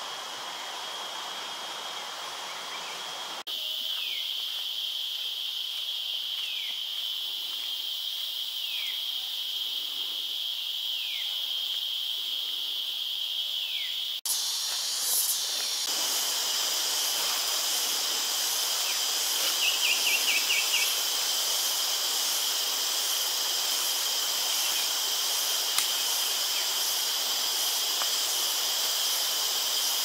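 Steady high buzzing drone of forest insects, with a short falling call repeating about every two seconds through the first third and a brief rapid trill near the middle. The background drone changes abruptly twice.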